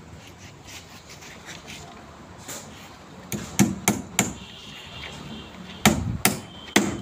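Hammer nailing a timber brace onto wooden footing formwork: a quick run of about four blows a little after halfway, then three more near the end.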